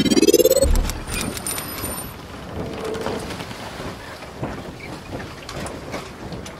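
Logo intro sound effect: a rising swoosh that ends in a low boom under a second in, then a steady crackling, rain-like hiss with scattered ticks.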